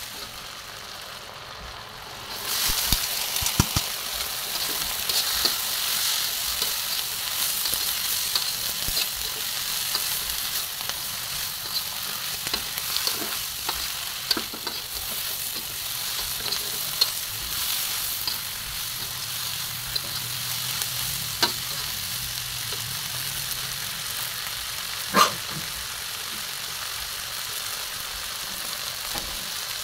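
Pork and vegetables sizzling in hot oil in a wok while a metal slotted spatula stirs and scrapes them, with small clicks of the spatula on the pan. The sizzle grows louder about two seconds in, and there is one sharper clank of metal on the wok late on.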